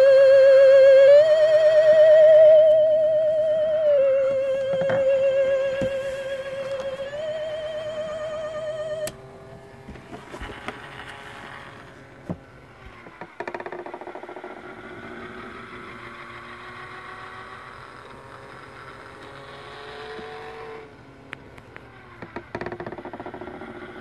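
Animated Dracula coffin decoration's spooky electronic theremin-style tune: a loud wavering tone that steps back and forth between two pitches, cutting off abruptly about nine seconds in. After it come quieter mechanical sounds, with sharp clicks and knocks as the coffin lid is handled.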